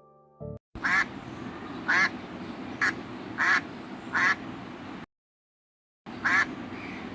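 Duck quacking: short single quacks roughly once a second over steady background noise, broken by about a second of silence partway through.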